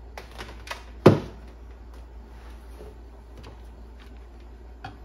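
Workbench handling noise: a sharp knock about a second in, the loudest sound, among scattered lighter clicks and taps as speaker parts and a cordless impact driver are handled.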